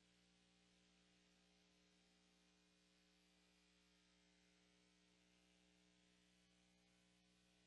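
Near silence: a faint, steady electrical hum with light hiss on the broadcast feed.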